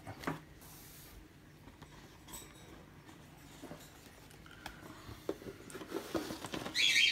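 Cardboard board-game components being handled: sparse light taps and a soft sliding rub, busier in the last two seconds as a thick punchboard is lifted from the box.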